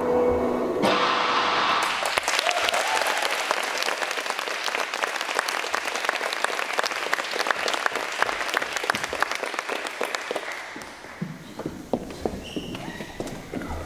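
Music stops about a second in, and a small audience claps for about ten seconds before the applause dies away.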